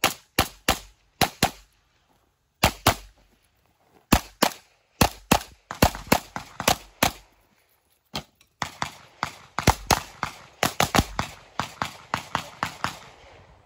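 Handgun shots fired rapidly in pairs and quick strings, each a sharp crack with a short tail. Brief pauses of about a second fall between groups, and a dense run of shots fills the last five seconds.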